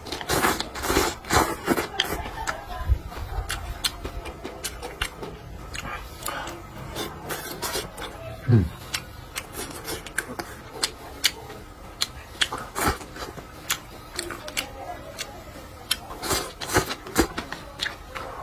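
A person eating close to the microphone: chewing and mouth sounds with many sharp clicks and small knocks, and a brief low hum falling in pitch about halfway through.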